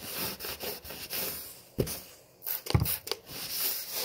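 Wooden board being wiped clean with rubbing strokes, with two short knocks around the middle.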